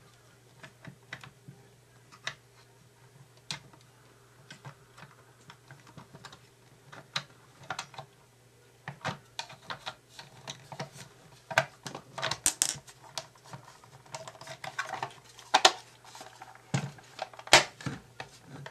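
Small plastic parts of a toy remote-control spy car being handled and fitted together: scattered clicks and taps, sparse at first and busier in the second half, over a faint steady hum.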